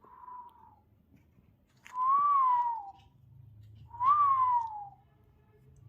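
Three whistled notes about two seconds apart, each about a second long, rising briefly and then sliding down in pitch; the first is faint.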